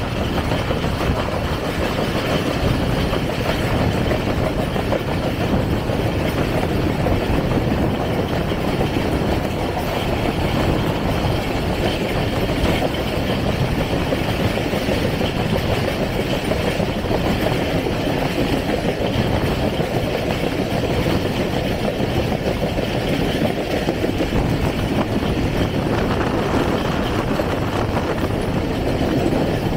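A passenger train running at speed, heard from an open door or window of the coach: a steady rumble of wheels on the rails and the coach's running noise.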